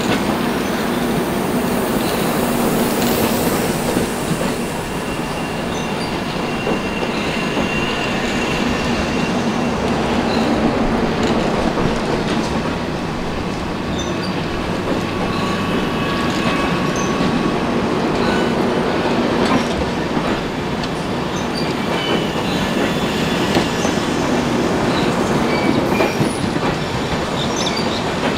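LHB passenger coaches of an Indian express train rolling past close by: a steady rumble of wheels on rail with clatter from the wheels and faint squeals that come and go.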